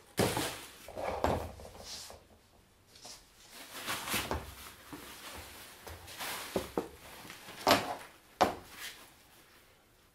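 Irregular clunks, knocks and rustling as a Hauck Viper stroller frame is handled and lifted, partly unfolding, with packaging rustling at the start. Two sharper clacks come about three-quarters of the way through.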